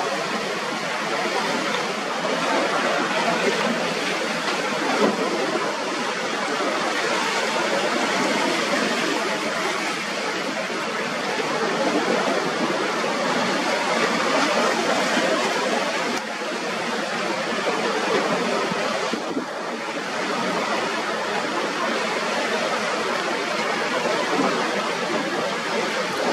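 Continuous rush of rough surf and breaking waves.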